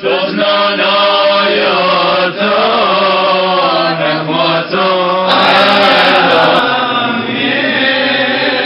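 Syriac Orthodox liturgical chant: male singing in slow, drawn-out melodic phrases over a steady held low note, growing a little louder about five seconds in.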